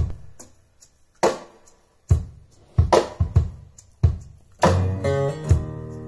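A song played through home-built floor-standing speakers with ScanSpeak Illuminator tweeters and Peerless HDS mid drivers, heard in the room. Sharp, separate drum-like hits come about once a second, then a sustained guitar chord with a bass line comes in about two-thirds of the way through.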